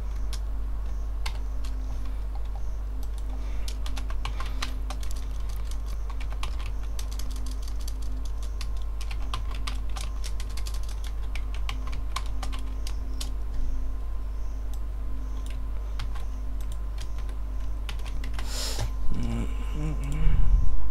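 Typing on a computer keyboard: irregular runs of keystrokes over a steady low hum, with a few louder clicks and noises near the end.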